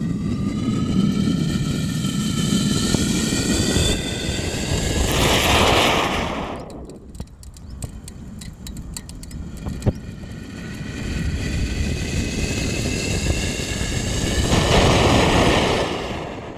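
Pressure cooker with a lit anar fountain firework burning inside, its fumes jetting out through the whistle vent as a hissing whistle that rises slightly and swells into a loud rush about five seconds in. Then crackling with one sharp crack, and the whistling hiss builds again to a second loud rush near the end.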